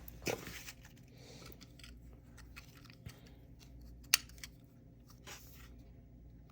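Faint rustling and handling of a mail package being opened, with a few scattered clicks and one sharp click about four seconds in.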